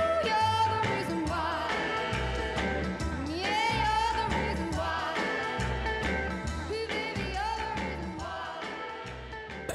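Background song: a singer's voice with vibrato over a steady bass beat, growing quieter toward the end.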